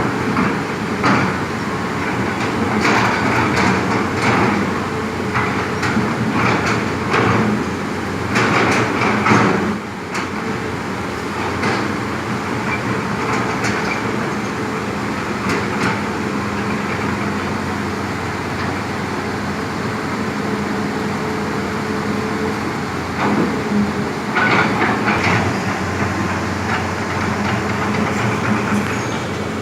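Heavy diesel construction machinery running steadily, with bursts of metal clanking and rattling through the first ten seconds and again about twenty-four seconds in.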